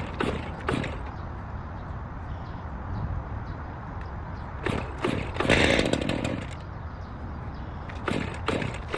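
Heavy equipment engine running low and steady, with scattered knocks and a brief, louder burst of noise about five and a half seconds in.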